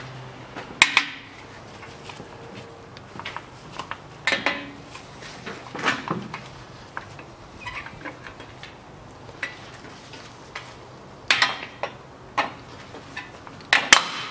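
Scattered metallic clinks and clicks of hand tools on rear drum brake hardware as the brake shoes are taken off, with a few louder clanks late on.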